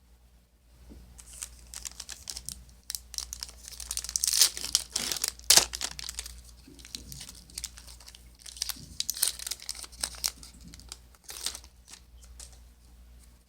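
Foil trading-card booster pack wrapper being crinkled and torn open, in a run of crackling rustles. The loudest tearing comes about five seconds in, with more crinkling around nine to ten seconds.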